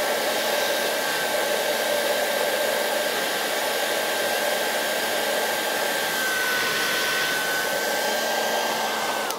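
Siegen handheld hair dryer blowing hot air onto a shoe sole to reactivate the PVC contact glue before the rubber is pressed on: a steady rush of air with a high motor whine, switched off at the very end.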